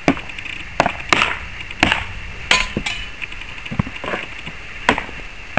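Sword-and-shield sparring: sword blows striking kite shields, about ten sharp knocks at an uneven pace.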